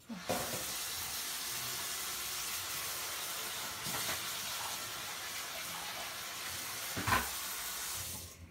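Steady loud hiss that starts abruptly and cuts off abruptly after about eight seconds, with a single knock about seven seconds in.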